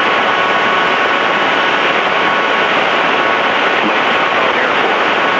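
Cessna 210D in cruise, heard from inside the cabin: its six-cylinder piston engine and propeller running steadily under a dense, even rush of air, with a faint steady whine.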